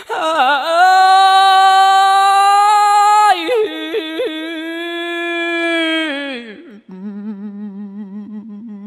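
A man chanting Khmer smot, a sung Buddhist-style recitation, in a single unaccompanied voice. He holds long ornamented notes, loud and high through the first six seconds, then falls to a lower, quieter held note with a wavering pitch near the end.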